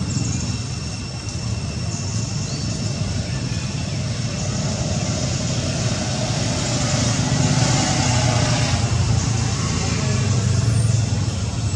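Steady outdoor background noise: a low, engine-like rumble with faint voices, growing a little louder over the second half.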